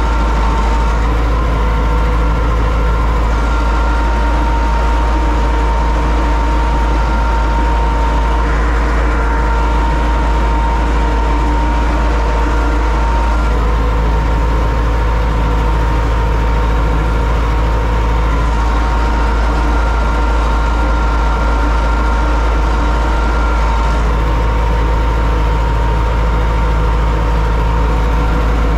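Universal U650 tractor's four-cylinder diesel engine running steadily under load while pulling a plough, heard from inside the cab. A steady high whine sits over the deep engine rumble.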